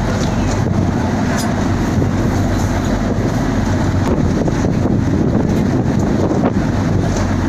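Boat engine running with a steady low hum, with wind buffeting the microphone.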